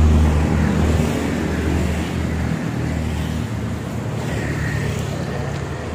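Road traffic: a motor vehicle's engine running close by, a steady low hum over a wash of road noise that eases off slightly after the first couple of seconds.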